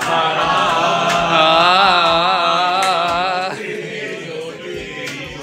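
A person singing a long held note with heavy vibrato, which ends about three and a half seconds in, over a steady low hum.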